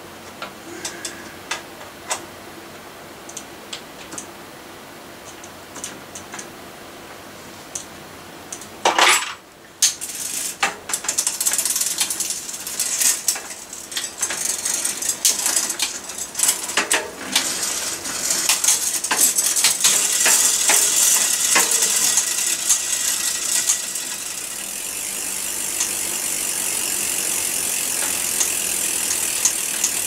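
Mountain bike drivetrain being worked by hand: scattered clicks at first, a loud clack about nine seconds in, then the chain running steadily over the sprockets with ratchet-like clicking as the front gears are set up.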